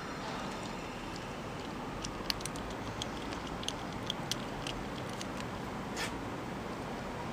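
Ferret crunching dry kibble: a run of sharp, irregular crunches about a third of the way in, one more near the end, over a steady hiss.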